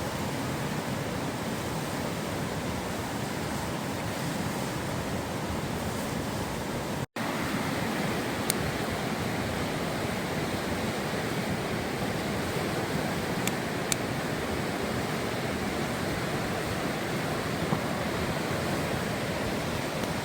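Steady rush of a river flowing, an even noise with no change in strength, and a few faint ticks over it. The sound drops out for an instant about seven seconds in.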